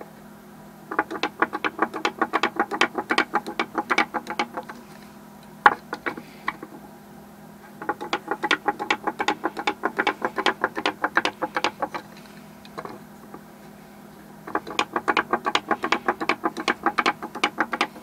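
Wooden hopping kangaroo toy hopping down a sloped plywood board: its swinging wooden legs tap the board in a rapid clatter of many taps a second. It comes in three runs of about three to four seconds each, with short pauses between.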